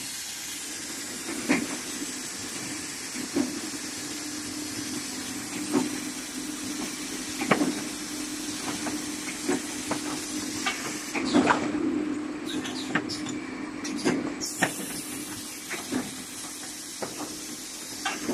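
Automatic case packer for aerosol cans running: a steady machine hum and hiss, with sharp clacks and knocks every second or two from its moving parts as the cans are conveyed and gripped.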